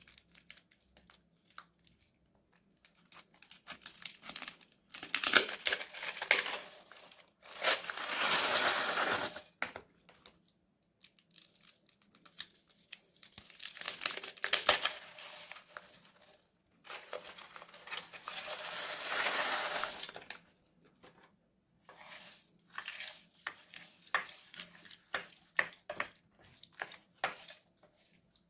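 Clear plastic piping bags packed with plastic craft beads crinkling and rattling as they are handled, snipped open with scissors and emptied onto slime, with two steady rushes of about two seconds each and scattered sharp clicks near the end.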